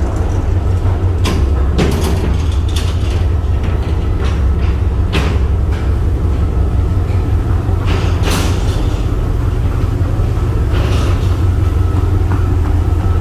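Steady low vehicle rumble of something in motion, with a few short clicks and rattles over it.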